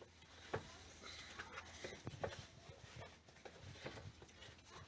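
Faint scattered clicks and light scraping as the compressor's air filter is screwed in by hand.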